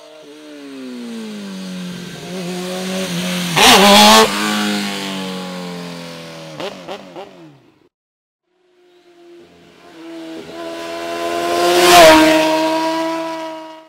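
Two sportbikes passing at high speed one after the other. The first engine grows loud and peaks about four seconds in, then fades away. A second bike approaches, is loudest near the end, and its engine pitch drops as it goes by.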